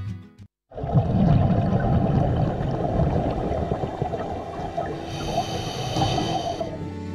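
Muffled underwater noise of scuba divers descending, with the rumble and gurgle of their exhaled bubbles. A higher hiss joins about five seconds in and lasts for under two seconds.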